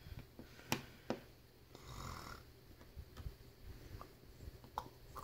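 Small sharp clicks and taps from handling the opened iPhone 6, its tiny screws and the screwdriver, with the two loudest about a second in. A soft rushing sound comes about two seconds in, over a steady low hum.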